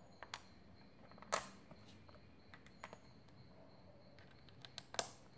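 LEGO pieces clicking: small plastic plates set down on a tabletop and pressed together, a handful of light, sharp clicks, the loudest a little over a second in and near the end.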